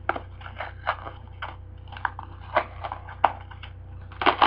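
Cardboard shipping box being pulled open by hand, with irregular crackles and snaps of the cardboard and a louder crunch near the end.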